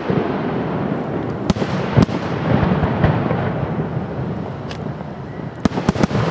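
Aerial firework shells bursting: sharp bangs about a second and a half and two seconds in, a fainter one later, and a quick cluster near the end, over a continuous low rumble of bursts echoing.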